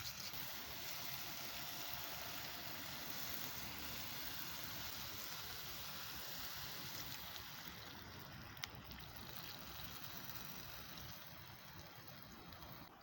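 Sukiyaki simmering and sizzling in a pan over a wood fire, a steady hiss that eases off near the end, with one sharp pop partway through.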